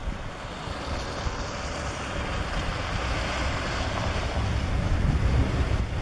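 Wind gusting across the microphone with a low rumble, over a steady wash of surf; the noise swells and is loudest near the end.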